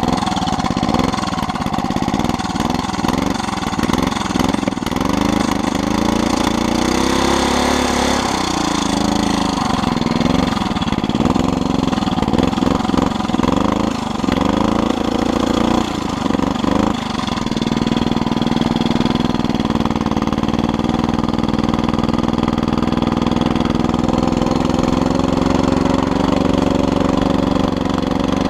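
Small engine of a homemade motorized bike running. For the first half or so its pitch rises and falls repeatedly, then from a little past halfway it holds steady.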